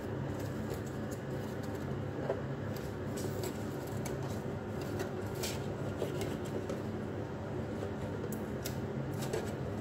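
Light clicks and rustles of a plastic LED-strip reel being handled and the strip's adhesive backing being peeled off, over a steady low hum.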